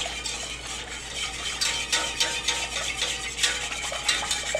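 Wire whisk rapidly clicking and scraping against a stainless steel saucepan as heavy cream is whisked into a cooked butter-and-flour roux, the start of a cream sauce.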